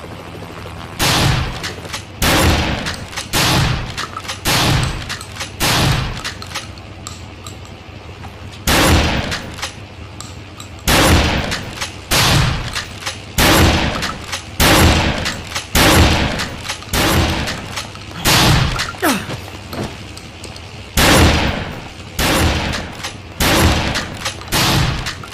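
Remington 870 pump-action shotgun firing shot after shot, about one shot every 1.2 seconds, each blast trailing off in a ringing echo. The shots come in three strings with brief pauses between them.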